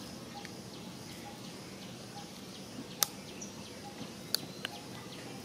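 Steady outdoor background noise with faint, short bird chirps scattered through it, and two sharp clicks about three and four and a half seconds in.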